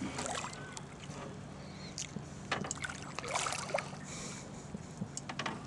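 Water splashing and sloshing at the surface beside a boat as a hooked catfish thrashes near the landing net, with short splashes coming every second or so over a low steady hum.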